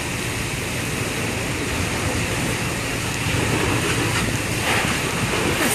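Steady rushing noise of a fire hose spraying water, over the low rumble of a running engine, growing a little louder about three seconds in.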